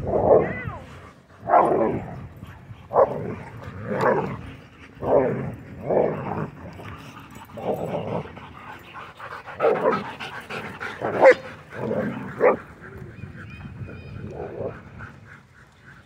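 Dogs play-fighting and barking and growling: about a dozen short, loud bursts roughly a second apart, thinning out near the end.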